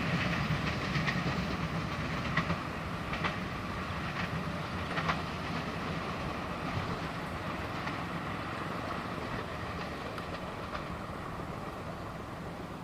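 A passenger train rolling past, steel wheels clicking over the rail joints, the sound slowly fading as it moves away.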